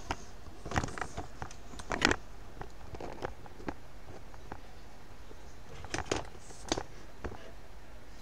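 Camera handling noise: scattered clicks, knocks and rustles as the camera is moved and set down, bunched about a second in, again around two seconds, and around six to seven seconds.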